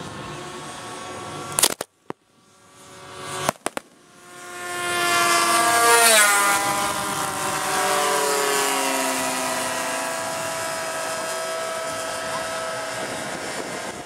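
Two sharp bangs from ground pyrotechnics, about two seconds apart, each briefly choking the recording. Then radio-controlled model warplanes' engines swell to a loud low pass about six seconds in, their pitch falling as they go by, and several engines keep running as the planes circle.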